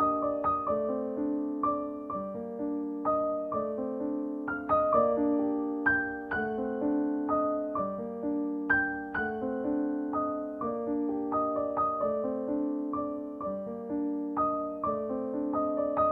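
Background music: a gentle piano melody of evenly paced notes, each one struck and then fading.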